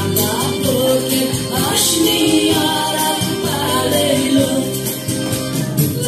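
Dance music with singing.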